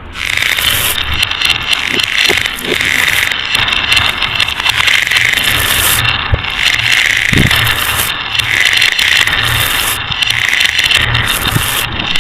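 Marbles rolling and rattling along a marble run track in a continuous stream.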